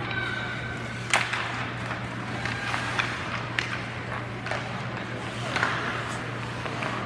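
Ice rink game sounds: skates scraping on the ice and several sharp clacks of sticks or puck, the loudest about a second in, over a steady hum and faint distant voices.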